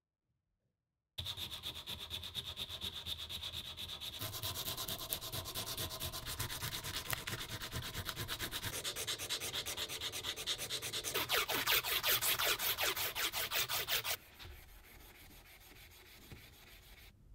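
The grater's steel wing screw is rubbed by hand with abrasive cloth in rapid back-and-forth strokes, giving a fast rhythmic scraping that starts about a second in and grows louder and quicker before it stops suddenly. Softer rubbing with steel wool follows for the last few seconds.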